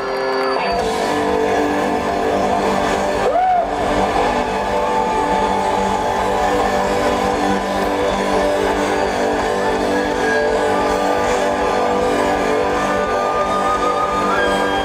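Live band playing loudly through a concert PA: an instrumental stretch of held chords with electric guitar, with a short sliding note about three and a half seconds in.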